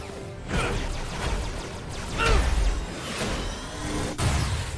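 Cartoon fight sound effects: swishing whooshes and heavy booming impacts and blasts, the loudest booms about two seconds in and again just after four seconds.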